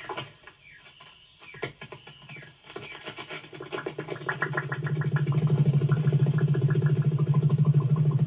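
A low, fast-pulsing buzz that swells in from about three seconds in and holds loud and steady. Before it come faint scattered clicks and short chirps.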